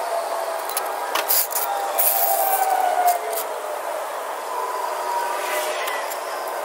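Metallic clinks and rattles from a floor jack and jack stands being worked, over a steady background hum, with a few sharp clicks in the first half.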